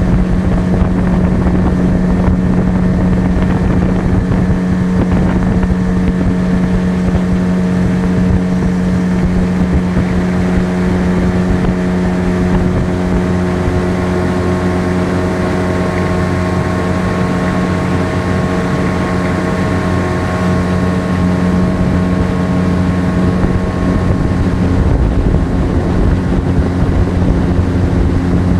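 A mid-1980s Yamaha 8 hp two-stroke outboard motor running steadily at an even pitch, driving a small aluminium boat.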